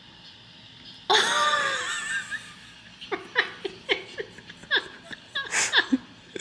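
A person laughing: a sudden high, wavering squeal of laughter about a second in, then a run of short bursts of laughter.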